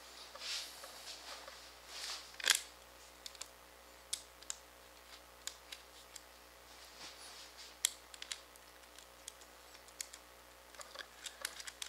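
Small nuts and screws clicking and tapping against a clear acrylic plate as they are threaded on by hand, with a few brief rustles of the hands. The clicks are scattered and irregular, the sharpest about two and a half seconds in.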